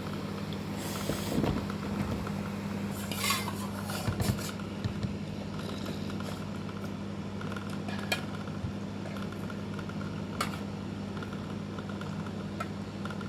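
Eating utensils clinking and scraping against a bowl of instant noodles in scattered short strokes, over a steady low hum.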